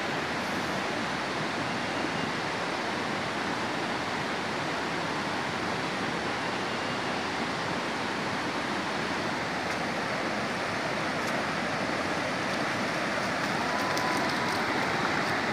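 Shallow river running over rocks and rapids: a steady rushing hiss of water.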